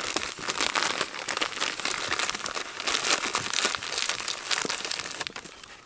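A plastic bag of coarse salt crinkles as hands scoop salt out and pack it onto whole fish, with the gritty crunch of salt grains. It stops shortly before the end.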